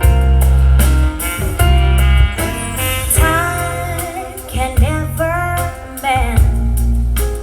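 A song with a singing voice and strong bass notes, with drum hits, played through a DIY 2.1 Bluetooth speaker box with a 6.5-inch HK subwoofer.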